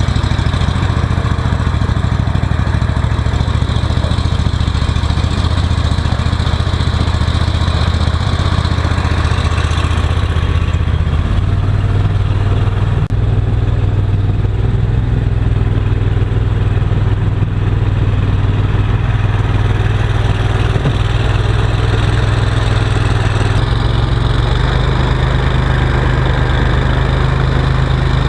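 Boat motor running steadily at speed. Its pitch steps up slightly twice, about a third of the way through and again near the end.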